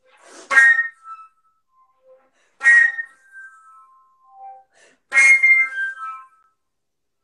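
Solo concert flute playing three sharp, breathy accented notes about two seconds apart, each fading out within a second, with a few soft short notes between them.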